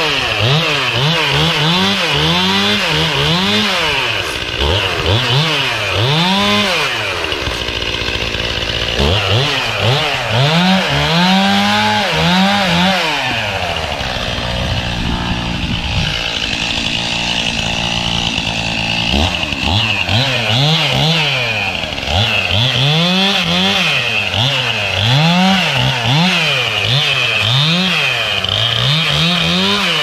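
Two-stroke chainsaw revved in quick, repeated throttle blips, its pitch rising and falling over and over. It drops to a steady idle twice, briefly about a quarter of the way in and for several seconds around the middle. The saw is being warmed up in freezing cold.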